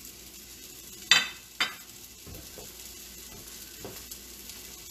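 Sliced peppers, onion and scallions sizzling faintly in a hot sauté pan, with two sharp clinks about a second in, half a second apart.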